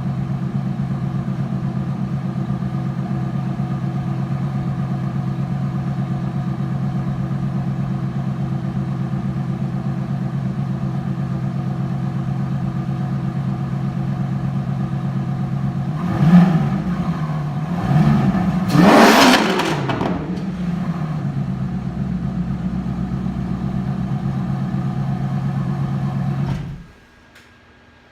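Ferrari F430's 4.3-litre V8 idling loudly through aftermarket headers and test pipes with the catalytic converters removed. About halfway through it is blipped once and then revved higher a few seconds later, settling back to idle before the engine is switched off near the end.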